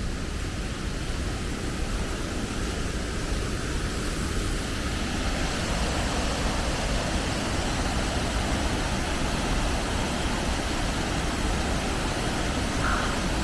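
Steady rushing of a waterfall, an even noise that grows a little fuller about five seconds in.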